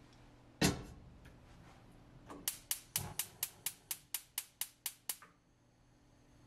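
A stovetop kettle set down on a gas hob's grate with a single knock, then the burner's spark igniter clicking about a dozen times, about four a second, until it stops.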